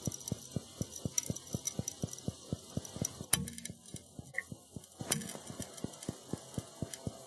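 Underwater recording of a glass instrument sphere cracking under deep-sea pressure: a fast, even run of sharp clicks, about five a second, with louder cracks about three and five seconds in. The cracking comes from the seam where the two glass hemispheres meet, as little glass shavings break off the inner lip.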